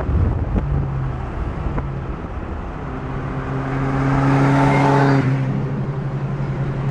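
Car engine running at a steady cruise with tyre and road noise, heard from inside the cabin while driving; the noise swells and then eases about four to five seconds in.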